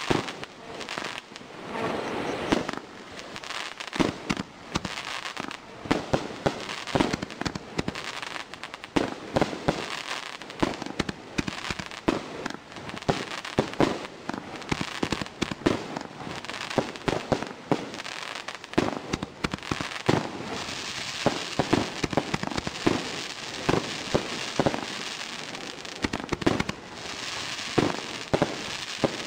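Ground-launched fireworks firing shot after shot: dozens of sharp bangs from launches and bursts at irregular intervals, a few every second. Under them runs a continuous noisy haze that grows stronger about twenty seconds in.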